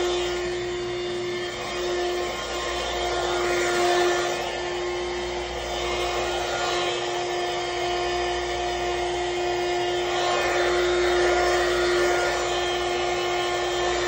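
Corded vacuum cleaner running steadily, its motor giving a constant whine over the rush of air.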